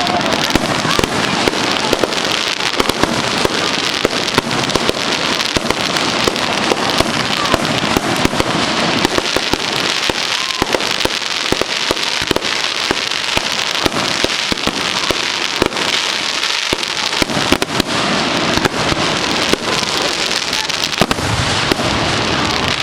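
Fireworks going off in a dense, continuous run of rapid crackles and pops, with a falling whistle near the end.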